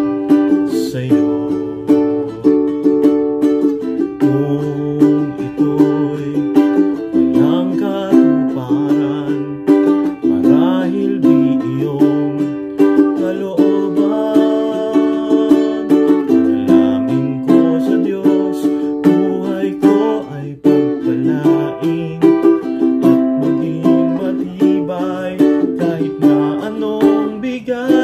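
Valukes all-koa tenor ukulele strummed in steady chords, with a man singing along in a low voice.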